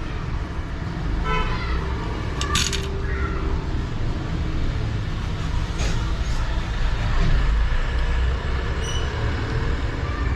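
Steady road traffic rumbling past, with a short vehicle horn toot about a second in and a few sharp clicks.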